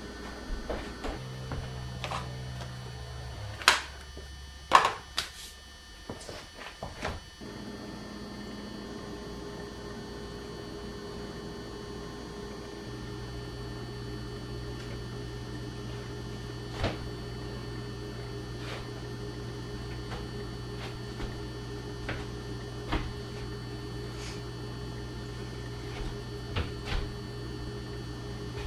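A steady low electrical hum with scattered clicks and knocks, including two sharp knocks about four and five seconds in.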